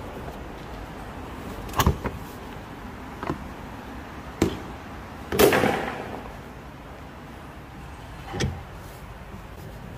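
Tools and metal parts being handled during combine servicing: five separate knocks and clanks. The loudest comes about halfway and trails off in a short scrape.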